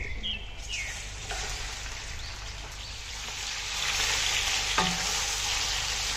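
Washed chicken pieces frying in hot oil with whole spices, a dense sizzle that sets in about half a second in and grows louder a few seconds later.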